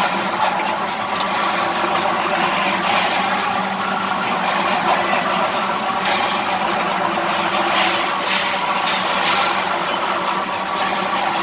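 Tuna canning machinery running: a steady mechanical hum with a held pitch, broken every second or two by short sharp clatters or hisses at irregular intervals.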